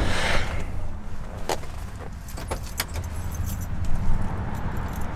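Handling and movement noise as someone climbs into a car: a rustle of cloth at the start, then a few sharp clicks and rattles, over a steady low rumble.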